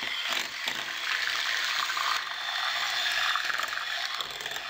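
Electric hand mixer running, its twin beaters churning runny chocolate brownie batter in a glass bowl: a steady wet whirring.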